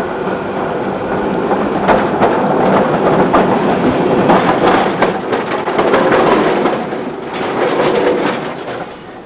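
Vintage tram passing close on curved track, its wheels and running gear rattling and grinding over the rails. The sound builds as it draws alongside about two seconds in and fades near the end.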